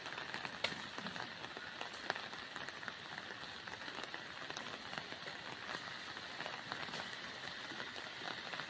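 Steady rain falling, an even hiss with scattered sharp ticks of drops.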